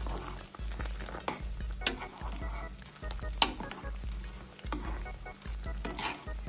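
Chicken broth bubbling at the boil in a stone-coated pot, with a spoon stirring and clinking sharply against the pot a few times.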